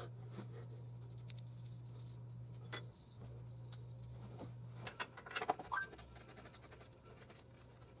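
Faint scraping and a few light metal clicks as the hub assembly's mounting bolts are handled and started by hand, over a low steady hum that stops about five seconds in.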